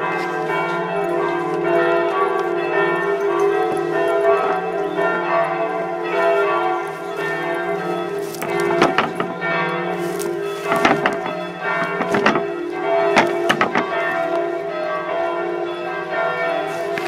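Bells ringing without a break, many tones overlapping, with a handful of sharp knocks in the second half.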